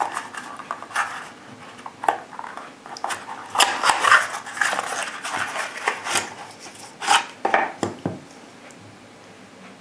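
A cardboard ammunition box being opened by hand and a plastic tray of brass rifle cartridges slid out of it, with scraping, rustling and sharp clicks. The handling stops about eight seconds in.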